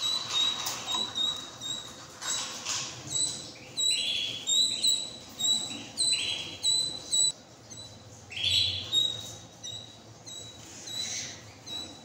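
Canaries at a nest, with the chick begging while a parent feeds it: thin high peeps repeating a few times a second, with a few short upward-sweeping calls. A brief rustle of wings comes near the start.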